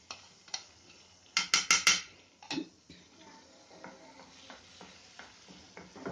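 A spoon knocks sharply four times in quick succession, then once more, as ground nut paste is knocked off into a frying pan. A wooden spatula then scrapes and stirs the paste in ghee across the nonstick pan.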